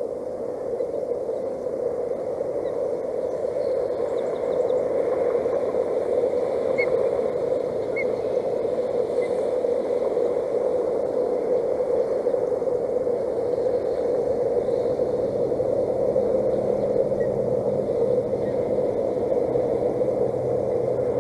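Hail and rain pelting the nest and camera steadily as a dense rattling hiss, growing louder a few seconds in.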